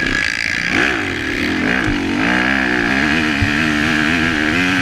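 Honda CRF250R motocross bike's single-cylinder four-stroke engine revving hard from onboard. The revs rise and fall about a second in, then hold high with the pitch climbing slowly as the bike accelerates.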